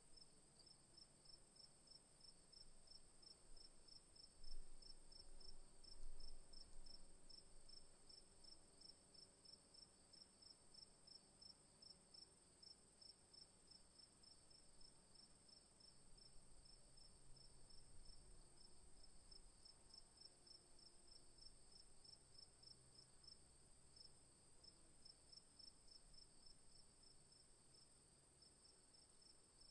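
Faint night chorus of crickets: a steady high-pitched trill with a rapid, evenly pulsed chirping under it. A couple of low rumbles come about four and six seconds in.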